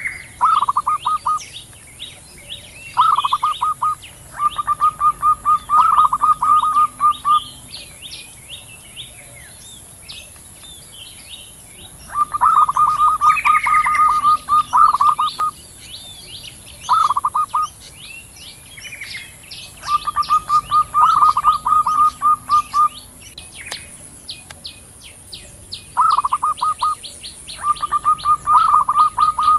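Zebra doves (perkutut), female and male, calling back and forth in bouts of rapid staccato cooing notes, each bout a second to three seconds long, with pauses between. Fainter high chirps of smaller birds and a steady high hiss run underneath.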